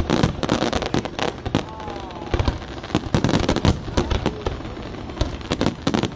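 Aerial firework shells bursting in rapid succession, a dense run of overlapping bangs and crackles. They are thickest in the first second and a half, thin out in the middle, and pick up again near the end.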